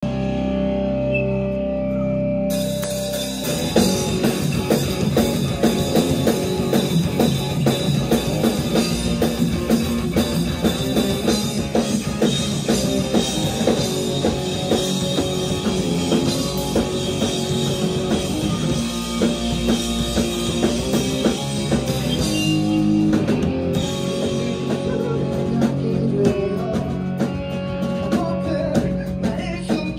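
Live rock band of drum kit, electric guitars and bass guitar playing. Steady held notes ring for the first few seconds, then the drums and full band come in about three and a half seconds in.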